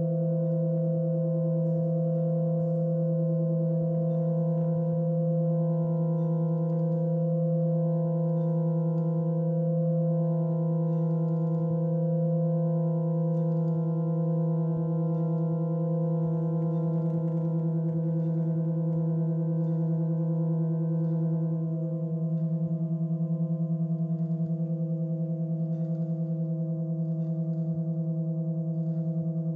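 Century-old pump organ (harmonium) reeds holding a sustained drone chord, steady held tones, with faint clicks from the keys. About two-thirds through the chord dips slightly and takes on a fast pulsing waver.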